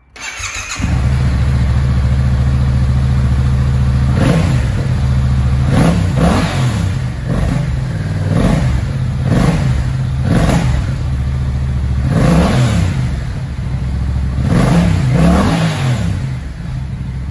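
Yamaha MT-07's 689 cc parallel-twin engine idling in neutral, then revved again and again with short throttle blips, each rising and falling in pitch.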